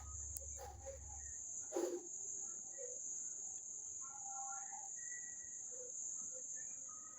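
Steady high-pitched insect trill, with a faint rustle about two seconds in.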